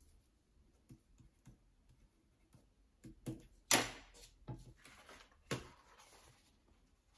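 A watercolour sheet on a spiral-bound pad handled on a glass desktop: a few light knocks and clicks with paper rustling, the sharpest knock about three and a half seconds in.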